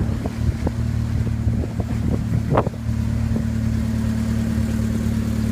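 An engine running steadily at an even speed, with a few small knocks and one sharper knock about halfway through.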